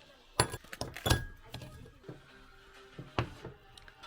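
Three sharp knocks and clinks of hard objects being handled and set down, about a second in, shortly after and near the end, over faint music.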